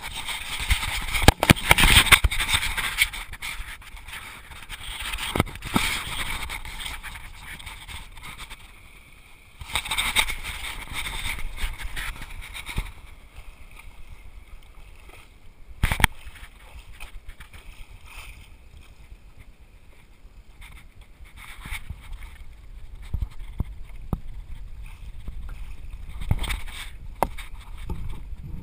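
Water splashing and sloshing around the nose of a stand-up paddleboard and the action camera mounted on it, coming in uneven surges, with a sharp knock about 16 seconds in.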